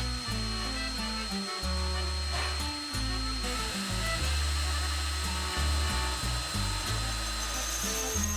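An electric power tool running with a steady high whine, its pitch shifting upward near the end, over background music with a stepping bass line.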